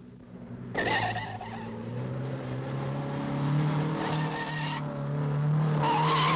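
A 1950s rally saloon car driven hard through a tight bend, its engine note rising as it comes on. Its tyres squeal briefly about a second in, again around four seconds, and loudest near the end.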